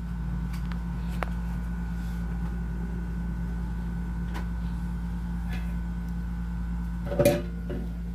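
Steady low hum with a faint high whine and a few faint scattered clicks; about seven seconds in, the ginger cat gives one short chirp.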